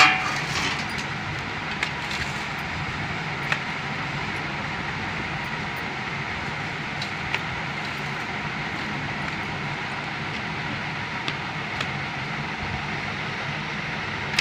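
Steady background hum and hiss, with a short loud clatter at the very start and a few faint clicks scattered through.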